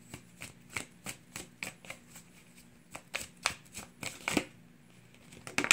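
A tarot deck with glossy foil-textured backs shuffled overhand by hand: a run of short, irregular card flicks and slaps, with a sharper, louder slap near the end.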